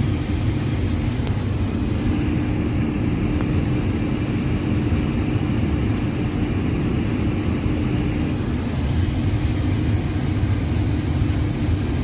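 Steady machinery hum and rush in an Airbus A320neo cockpit with its systems powered, with a steady mid-pitched tone through it that drops out about eight seconds in. There are a few faint clicks.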